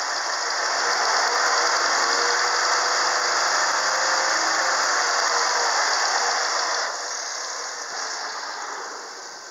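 Kia 2.5-litre G6BV V6 engine running at raised revs, held steady, and heard from the open engine bay. The sound grows louder about a second in and becomes quieter from about seven seconds in.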